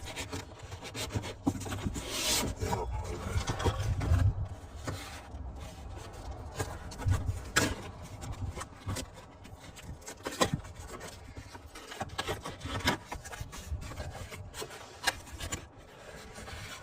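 Cardboard packaging and spray paint cans being handled and unpacked: continual rubbing and scraping, with scattered clicks and knocks.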